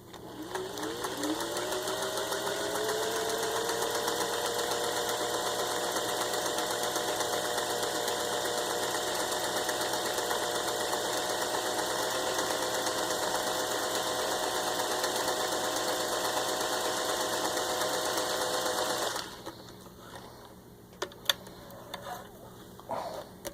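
1961 Singer 500A Rocketeer sewing machine with a rebuilt motor, running a built-in stitch pattern. It speeds up over the first couple of seconds, runs at a steady speed, and stops suddenly about 19 seconds in. A few light clicks follow.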